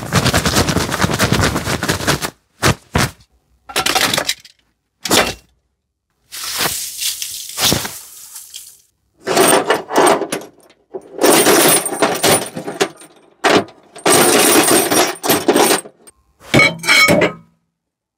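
Foley props being broken, struck and scraped in a series of separate short takes: crashing and cracking noises, some long and some brief, each cut off abruptly.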